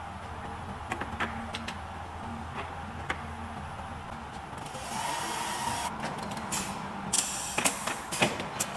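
Automatic welding machine for plastic window frames running: a steady low hum with scattered mechanical clicks, a hiss setting in about halfway, and a quick run of sharp clacks near the end.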